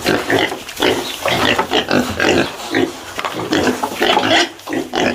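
Pig grunting, a quick, continuous run of short, rough calls.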